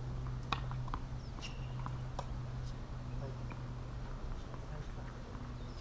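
Outdoor ambience: a steady low hum with a few faint, scattered chirps and clicks.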